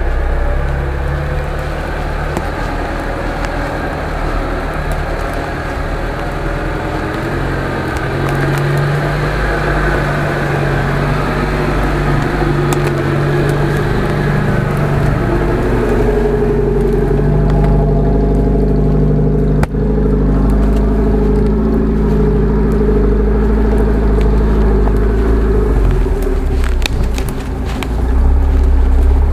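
UAZ-469 off-road vehicle's engine running steadily under load as it crawls along a rough track, its note shifting as the throttle changes.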